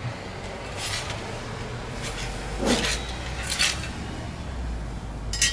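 Metal fan blade being worked off a heater blower motor's shaft with locking pliers: a handful of separate metal clinks and knocks with some rubbing in between.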